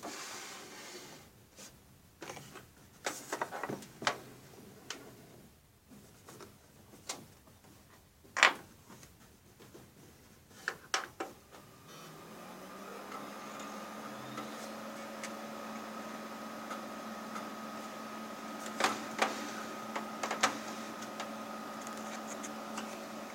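Scattered clicks and knocks, then about halfway through a desktop PC powers up: its fans spin up into a steady hum with a thin whine over it, with a few more clicks near the end.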